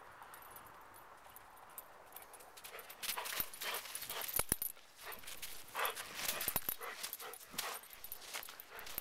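Faint outdoor hiss for about three seconds, then irregular crunching steps in snow, with a golden retriever moving close by. A couple of sharp clicks come about four and a half seconds in.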